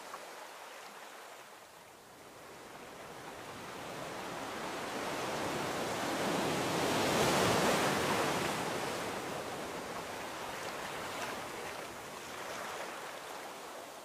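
Sea waves washing ashore: the surf rises to a peak about halfway through and then ebbs away.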